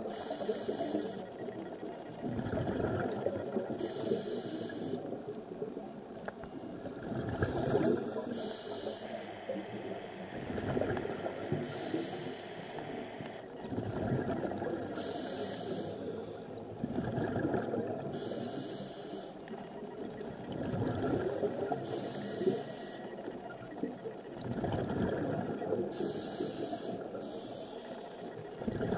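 A scuba diver's regulator breathing, filmed underwater: a hiss on each inhale alternates with a rumbling burst of exhaled bubbles, about one breath every four seconds.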